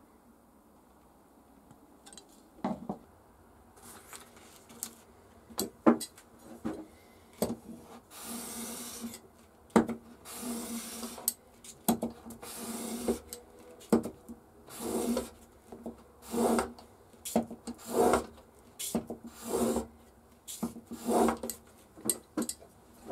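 Plane iron clamped in a roller honing guide being rubbed back and forth over abrasive paper on a flat plate to sharpen its bevel: repeated gritty rasping strokes, roughly one every second and a half. The strokes begin a couple of seconds in.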